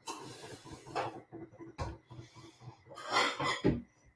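Kitchen handling sounds: soft rubbing and light knocks, a sharp click near the middle, then a louder scraping rustle about three seconds in as an overhead kitchen cupboard is opened.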